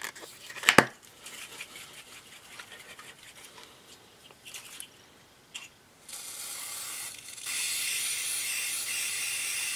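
Aerosol can of glue-remover spray hissing steadily for about four seconds, starting about six seconds in and growing louder partway through. A sharp click just under a second in.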